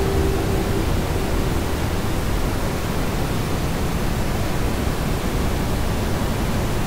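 Steady, even rushing noise, heaviest in the low end, from an ambient noise layer in a multitrack mix. A faint held low tone fades out about a second in.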